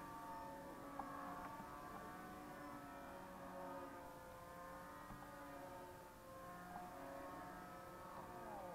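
Several radio-control combat model planes flying at once, their small motors making high, overlapping whines that slowly waver in pitch as the planes turn and pass.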